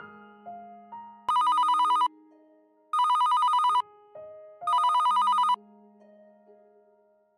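Telephone ringing three times in short trilling rings of under a second each, over soft piano background music.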